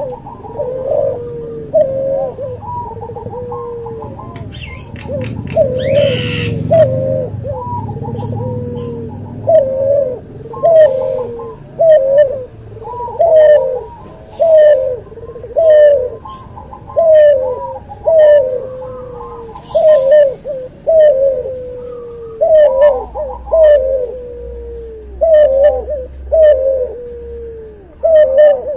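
Cuhu dove, a cross between a white albino puter and a puter pelung, cooing over and over at about one coo a second, each coo rising then falling. A brief rustling noise comes about six seconds in.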